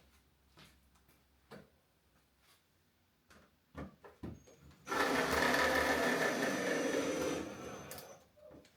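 A small handheld power tool runs steadily for about three seconds, then winds down. Before it starts there are a few light knocks and clicks of parts being handled.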